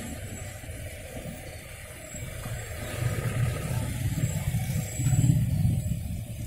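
Road traffic passing close: engines of a light truck and several motorcycles going by, the low engine rumble swelling from about three seconds in and loudest around five seconds in before fading.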